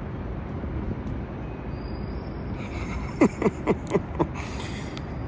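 Outdoor background noise: a steady low rumble, with four short falling chirps about three to four seconds in.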